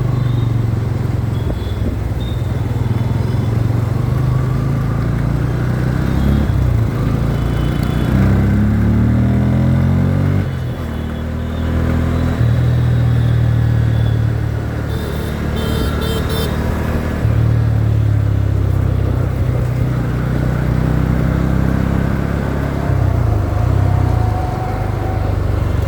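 Motorcycle engine running while riding, its note rising through the gears and dropping back as the throttle opens and closes.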